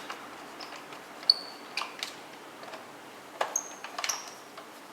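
Scattered small clicks and two short, ringing metallic pings, about a second and a half in and again about three and a half seconds in, from a screwdriver and small screws being handled while a Roomba's side brush module is fastened in.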